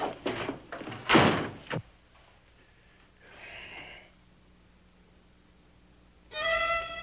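A few knocks and thumps ending in a door banging shut about a second and a half in. Near the end, a held note of orchestral string music comes in and sustains.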